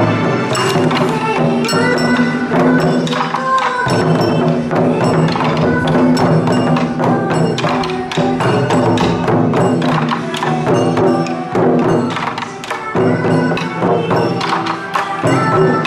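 Japanese pop song played as bon odori dance music, with singing over a band backing and a steady beat of sharp, clicky percussion.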